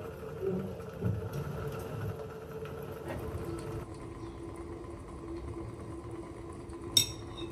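Pot of water simmering on a stovetop around a whole winter melon being double-boiled: a steady low rumble with a steady hum, and one sharp clink near the end.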